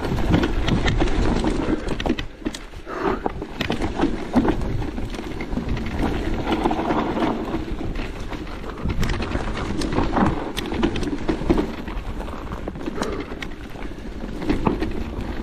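Electric mountain bike ridden over rough trail: a steady low rumble with frequent irregular knocks and clatter from the tyres and bike over the ground.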